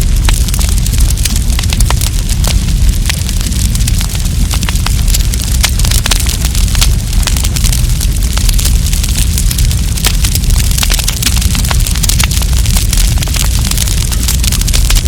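Wood campfire crackling: dense, irregular pops and snaps of burning wood over a steady low rumble from the flames.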